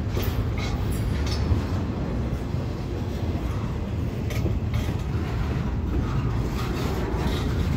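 Double-stack intermodal well cars of a freight train rolling past: a steady low rumble of steel wheels on rail, with scattered clicks and knocks.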